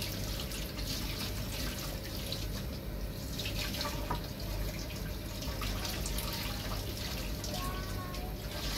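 Water running steadily from a kitchen tap into the sink while something is rinsed under it, with small clinks and knocks.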